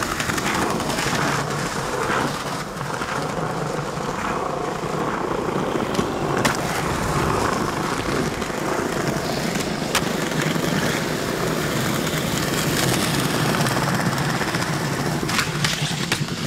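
Skateboard wheels rolling over asphalt and paving in a steady rumble, with a few sharp clacks of the board against the ground.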